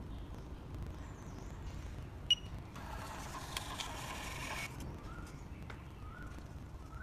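A handheld POS terminal gives a sharp beep about two seconds in, then its built-in thermal receipt printer runs for about two seconds, feeding out the sales slip, and stops abruptly. Faint short chirps repeat near the end.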